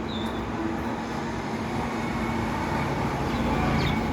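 Steady vehicle rumble, swelling slightly toward the end, with a couple of short high chirps.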